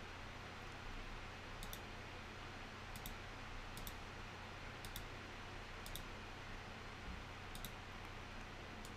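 Computer mouse clicking, about seven sharp clicks spaced a second or so apart, over a faint steady hiss and low hum.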